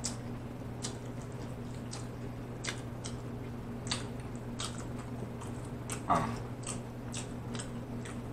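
Close-miked eating sounds of barbecue ribs and macaroni and cheese: wet chewing with scattered sharp lip-smacks and mouth clicks. A steady low hum runs underneath, and there is one short falling sound about six seconds in.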